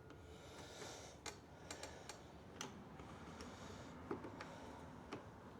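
Faint, irregular light clicks of small metal parts being handled at a lawn mower's rear wheel, where the cotter pin and washers hold the wheel on. About eight scattered ticks over a low hiss.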